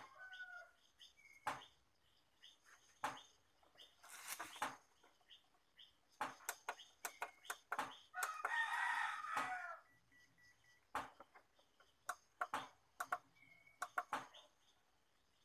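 A rooster crowing, with the loudest crow about eight seconds in, lasting about a second and a half, and sharp clicks scattered throughout.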